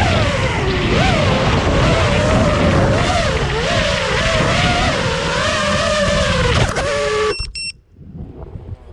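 FPV racing quadcopter's brushless motors and propellers whining, the pitch rising and falling with throttle. About seven seconds in the whine cuts off suddenly, followed by a few short high beeps.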